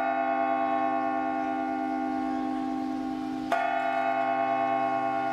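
Church bell tolling: one stroke is ringing on, and the next is struck about three and a half seconds in, each ringing long with many steady overtones.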